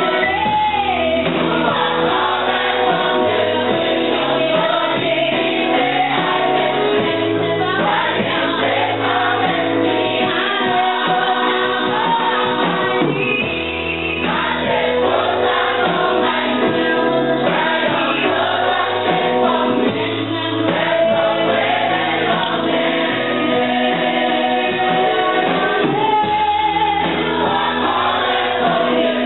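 Church choir singing a gospel hymn, led by a woman singing into a microphone, over low held notes that change every few seconds.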